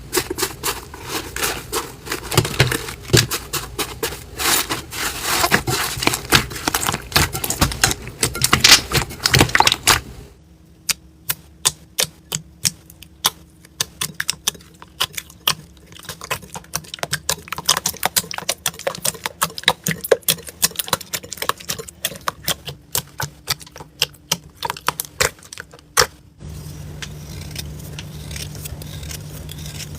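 Slime being squished and pressed by hand, making dense crackling clicks and small pops. The sound changes abruptly twice, and the last part is quieter, with a steady low hum under the clicks.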